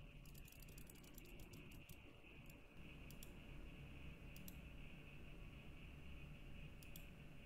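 Faint clicking from a small control knob on a breadboard computer being worked by hand: a quick run of clicks over the first three seconds, then a few single clicks further apart.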